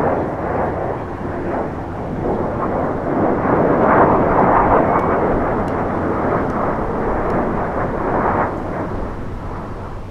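Jet engine noise from the US Air Force Thunderbirds' F-16 Fighting Falcons passing overhead in a six-ship formation: a deep rushing roar that swells about four seconds in, then slowly fades near the end.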